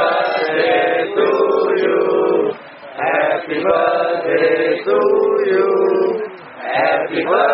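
A group of people singing a birthday song together in unison, line by line with short breaks between phrases.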